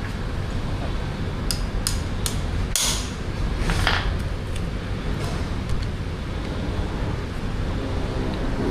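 A few sharp clicks, then two louder knocks about a second apart, from hand tools and metal parts being handled during motorcycle front-fork work, over a steady low rumble.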